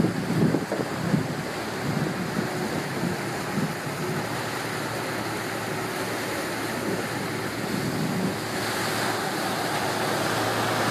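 Motor water taxi under way: a steady engine hum under the rush of water along the hull, with wind buffeting the microphone. The water hiss grows louder near the end.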